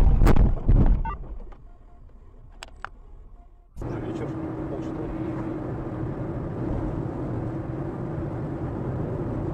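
Loud crash noise in the opening second, a heavy rumble with two sharp knocks, dying away to quiet. About four seconds in it cuts abruptly to the steady tyre and engine noise of a car cruising on a highway, heard from inside the cabin.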